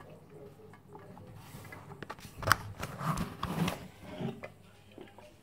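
Handling noise from a phone being picked up: a sharp knock about halfway through, then a second or so of rubbing and bumping against the microphone.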